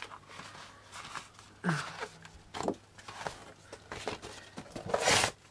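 Brown kraft paper rustling as it is handled and lifted, in several short rustles with a longer, louder one near the end.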